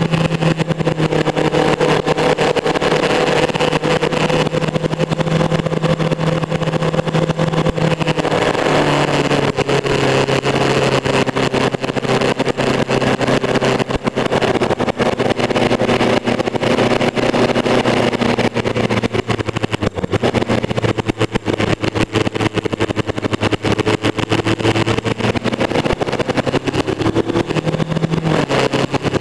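Motorcycle engine running at cruising speed under heavy wind rush on the microphone. The engine note drops about eight seconds in and rises again near the end.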